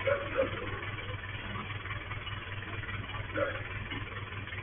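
Garbage truck's diesel engine idling steadily with an even low pulse, heard through a security camera's microphone. Two brief louder sounds stand out, near the start and about three and a half seconds in.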